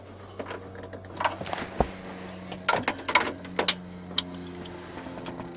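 Clicks and taps of a screwdriver and hands against a plastic radio mounting kit in a truck dash, a scattered handful with a low knock about two seconds in and a quick cluster around the middle, over a steady low hum.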